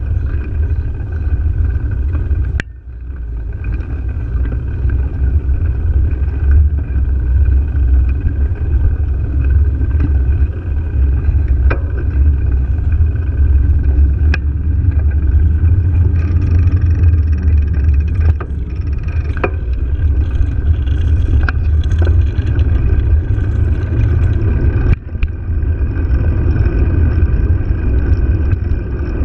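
Loud, steady low rumble of wind and road noise on a bicycle-mounted camera riding along pavement, with occasional sharp clicks.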